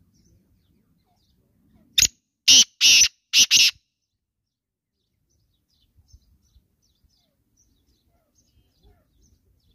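Black francolin calling: one loud phrase of five short, harsh, rasping notes about two seconds in, over in under two seconds.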